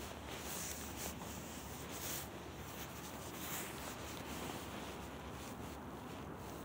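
Faint rustling and rubbing of a phone against a coat hood and clothing as it is handled, with a few soft scrapes over a low steady hiss.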